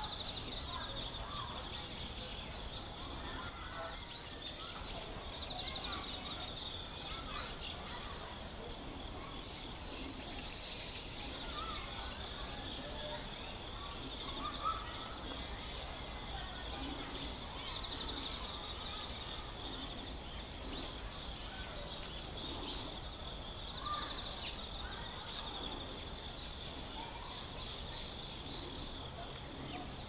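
Outdoor woodland ambience: a steady, high-pitched insect-like trill that swells every few seconds, with faint scattered short chirps and a low background rumble.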